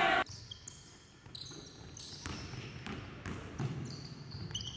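A basketball bouncing on a hardwood gym floor, with several short, high sneaker squeaks and scattered knocks as players move. A brief loud burst of noise comes at the very start.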